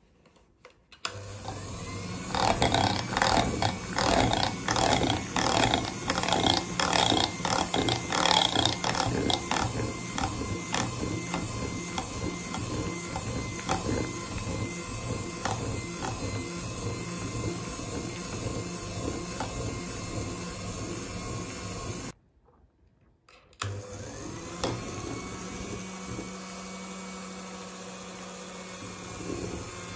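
Electric hand mixer running, its wire beaters mixing flour into thick cake batter and clicking against a glass bowl. It starts about a second in, cuts out briefly about two-thirds of the way through, then runs on steadily.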